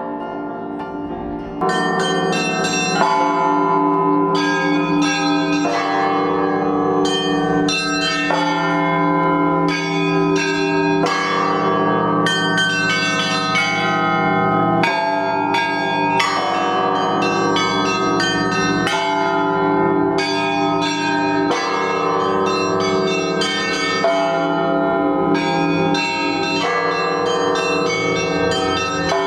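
Russian Orthodox church bells rung by hand in a continuous peal: many bells struck in a quick, overlapping rhythm, high small bells over deeper ones that keep ringing. The peal grows louder about a second and a half in.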